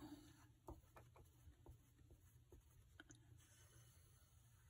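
Near silence with faint pencil-on-paper sounds: a pencil drawing light strokes, with a handful of soft, separate taps spread through.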